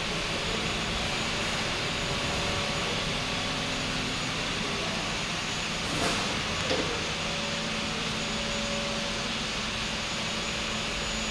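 Steady machinery noise in a workshop of CNC wheel lathes: a constant hiss with a faint hum and a thin whine over it, and one short knock about six seconds in.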